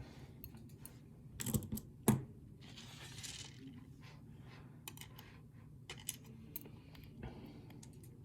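Small metallic clicks and taps as a pin-tumbler lock is taken apart and its pins and springs are handled, with two louder knocks about a second and a half and two seconds in and a short rustle soon after.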